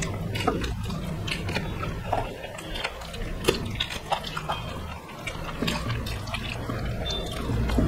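Close-up eating sounds of two people eating rice and curry by hand: wet chewing, lip smacks and the squish of fingers mixing rice, as many short sharp clicks over a low steady hum.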